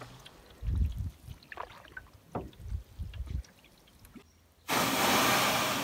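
Swift canoe being paddled, with low knocks and sloshing of water at the hull, then after a short break a loud, even rushing scrape near the end as the hull comes up onto a sandy beach.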